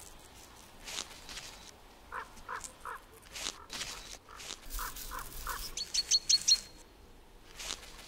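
Wild birds calling: two groups of three short, fairly low notes, then a quick run of sharp high chirps about six seconds in, the loudest part. Under them are sharp, irregular taps of a great spotted woodpecker pecking at a cone.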